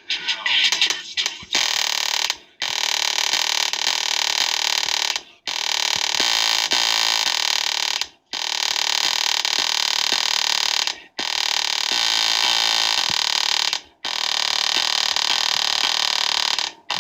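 JBL Flip 4 speaker driver overdriven by an amplifier with a song, giving a harsh, heavily distorted blare in repeating phrases of about three seconds, each broken by a brief silence.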